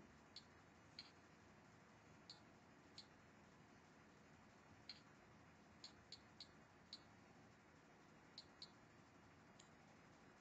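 Faint, irregular key clicks from a tablet's on-screen keyboard as text is typed, about a dozen short, high-pitched ticks spaced unevenly.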